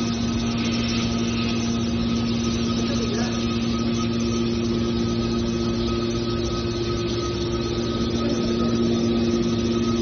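Hydraulic scrap metal baler running: its motor and hydraulic pump give a steady hum with a few constant tones while the rams move, growing slightly louder near the end.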